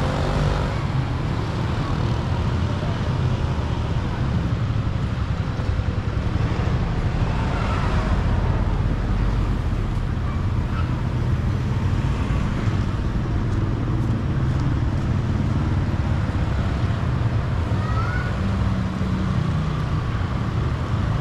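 Street traffic: motorbikes and cars passing, a steady low rumble.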